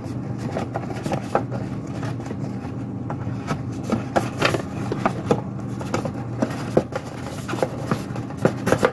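Light taps, knocks and scrapes of a white cardboard box insert tray being handled and pressed back into its packaging box, over a steady low hum.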